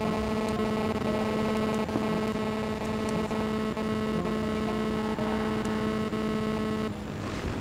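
Steady electrical hum with a stack of overtones, cutting off suddenly near the end.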